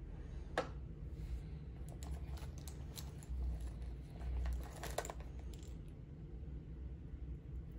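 Light taps and clicks of small objects handled on a tabletop over a steady low hum. There is one sharp tap about half a second in as a lip balm tube is set down, then scattered clicks and a denser run near five seconds as wired earphones and their cable are pulled from a zipped cosmetic pouch.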